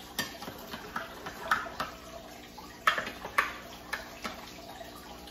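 A spoon clinking against a glass coffee jar and a mug as coffee is spooned into the mug: about six sharp, irregular clicks.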